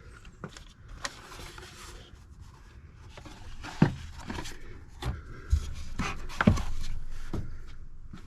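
Clicks, knocks and rubbing of hands working on a pickup's plastic air filter housing as it is seated and its bolts are fitted, with two louder knocks about four and six and a half seconds in.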